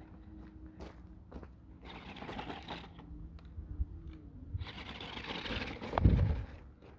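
Toy RC monster truck's small electric motor whining while its tyres crunch over loose pebbles in two spells; one loud thump about six seconds in.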